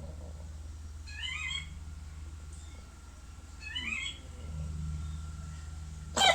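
A chicken giving two short squeaky calls about two and a half seconds apart: the odd noise its owner cannot place as a cough or a sneeze. A much louder call starts right at the end.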